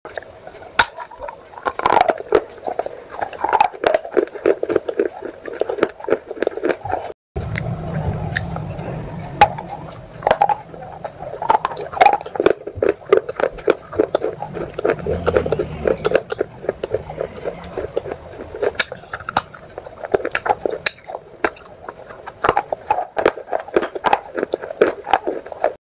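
Close-miked chewing of wet baked-clay pot pieces: fast, moist crunches and clicks, many per second, in long runs with short pauses between.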